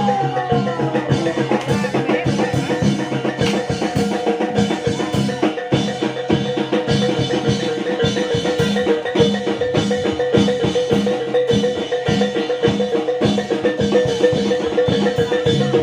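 Javanese reog (jaran dor) accompaniment: tuned metal mallet percussion and hand drums play a fast, steady rhythm, with a high wavering melody line dying away about a second in.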